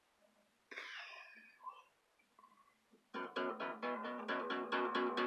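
A brief rustle of handling near the start, then an acoustic guitar begins to be strummed about three seconds in, in a quick, even rhythm.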